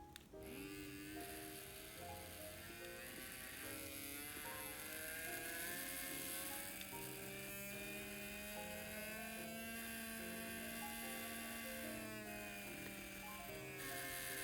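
Small electric motor of an N-gauge model train, a TOMIX M-9, running with a buzzing whine that rises in pitch, holds, and then falls as it speeds up and slows down. Background music plays along with it.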